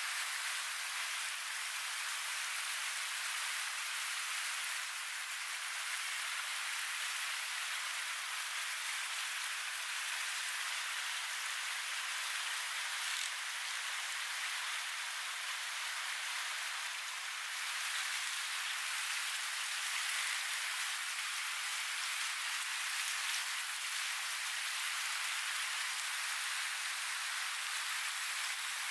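Steady rushing of river rapids: an even, unbroken hiss of moving water.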